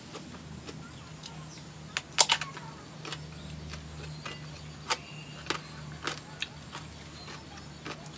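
Eating sounds: a run of sharp crunches and clicks as food is bitten and chewed, the loudest about two seconds in, over a low steady hum.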